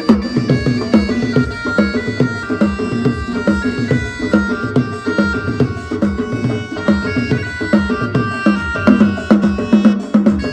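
Balochi lewa music: a keyboard plays a melody in held notes over a steady, fast drum rhythm.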